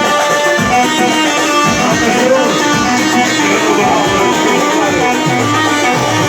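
Instrumental band music with a plucked-string lead and no singing.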